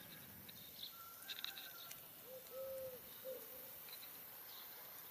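A dove cooing faintly: one short-long-short phrase a little over two seconds in, with a few faint high chirps a second before it.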